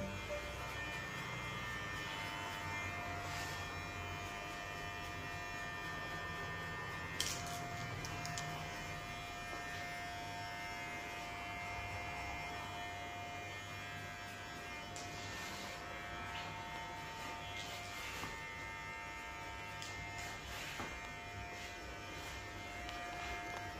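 VGR V682 cordless hair clipper running with a steady electric buzz, broken by a few brief clicks.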